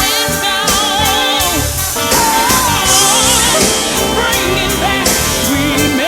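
A soul band with drum kit plays while a solo singer sings wavering, wordless vocal runs over it.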